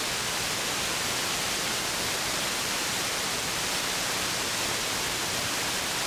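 CB radio receiver putting out steady open-squelch static hiss between transmissions, with no station coming through.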